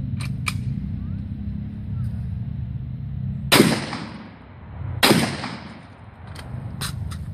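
Two slug shots from a Saiga-12 12-gauge semi-automatic shotgun, about a second and a half apart, each trailing off in a long echo. A few sharp clicks come shortly before the first shot and again after the second.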